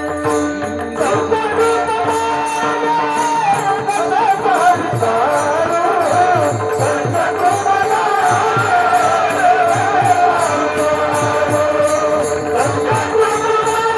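Kirtan devotional music: a wavering melody over a steady held drone, with jangling hand percussion and low drum strokes keeping a steady beat.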